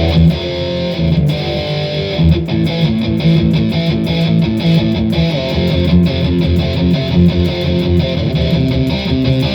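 Electric guitar played through a distorted metal preset in computer amp-simulation software, heard from a full-range flat-response amplifier. It plays a continuous riff of many quickly picked notes.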